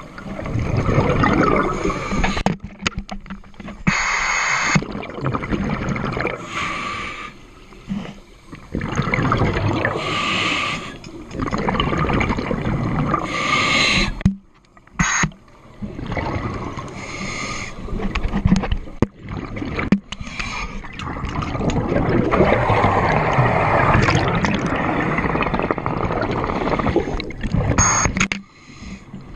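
Scuba regulator breathing recorded underwater: sharp hissing inhalations every few seconds alternating with long bubbling, rumbling exhalations.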